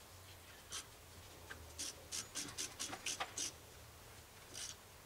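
Socket ratchet working on a car wheel's lug nuts: faint, separate clicks, with a run of about eight between about two and three and a half seconds in.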